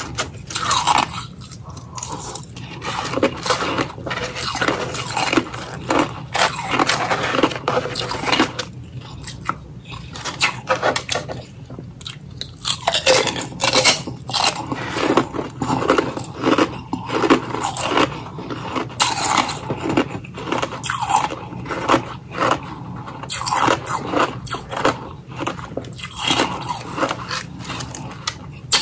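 A person chewing crushed ice close to the microphone: dense, irregular crunches, with a quieter lull about ten seconds in.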